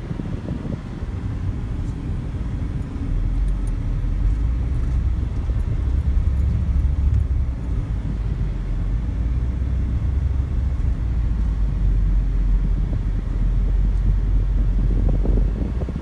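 Steady low rumble of road and wind noise from a moving vehicle on the road, growing a little louder and deeper about three seconds in.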